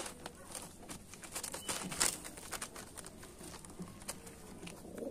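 Clear plastic bag crinkling and rustling in irregular crackles and taps as a pigeon is handled on it, the sharpest crackle about two seconds in.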